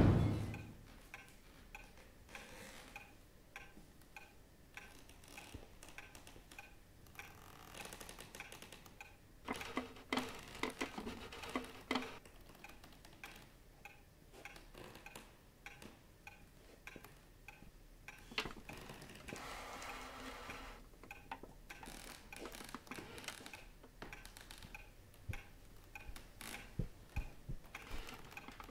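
Clock ticking steadily and faintly, with a few soft knocks and rustles about a third of the way in and again near the end.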